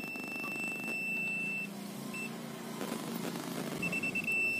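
MECO clamp meter beeping in continuity mode, signalling a closed circuit where the probes make contact. One steady high beep for about a second and a half, a short blip a little after two seconds, then broken beeping again near the end.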